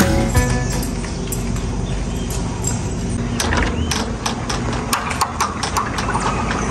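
A Volkswagen Kombi van's engine idles steadily. From about halfway through, irregular clicks, knocks and footsteps come in as the metal-handled glass door is handled.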